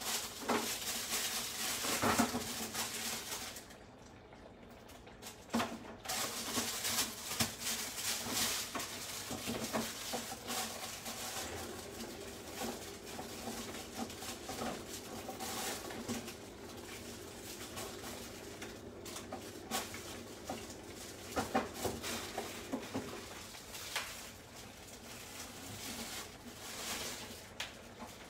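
Kitchen prep sounds: irregular clicks, knocks and rustles of food and utensils being handled, over a pan of cuttlefish simmering on the hob. A faint steady hum comes in about twelve seconds in and stops about ten seconds later.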